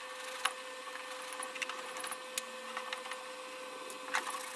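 King Canada benchtop parts washer's pump running with a steady hum while cleaning liquid flows from the flow-through brush, with a few light clicks of metal parts knocked against the tub and brush as they are scrubbed.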